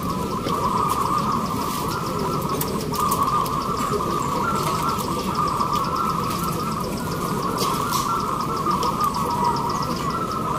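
Many zebra doves cooing at once, their overlapping coos merging into one continuous chorus, with a fast, even high ticking above it.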